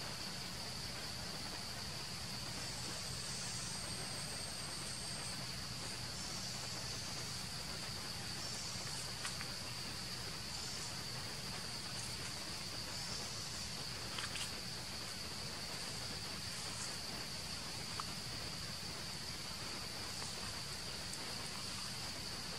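Steady high-pitched drone of forest insects, with a few faint clicks here and there.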